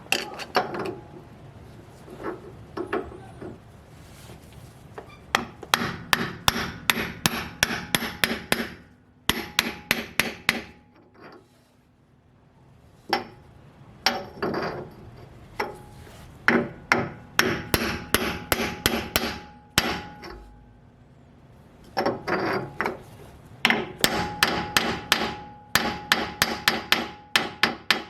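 Hammer tapping a homemade seal installer tool to drive a new rear axle oil seal into a Toyota Hilux axle housing. Runs of quick blows, about three or four a second, each ringing briefly, broken by short pauses.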